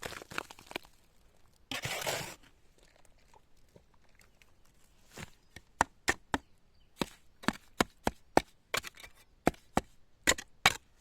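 A series of sharp strikes, irregular and coming roughly two a second in the second half, with a brief rustling burst about two seconds in.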